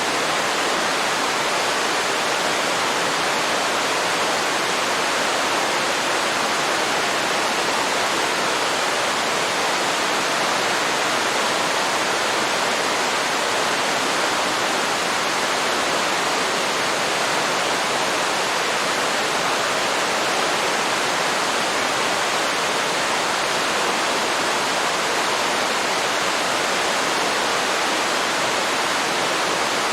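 Waterfall pouring into a river: a steady, even rush of falling water with no change.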